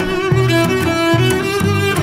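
Instrumental background music, a low bass line moving note by note under held higher notes.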